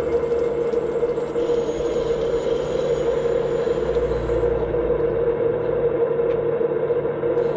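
Hydraulic pump of a 1/14-scale RC Liebherr 945 excavator running with a steady whine, under a low rumble that swells and eases as the machine works.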